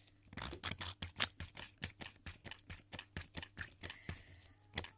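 Liquid hand soap being squeezed from its bottle into a pot, with a rapid, irregular run of clicks and crackles.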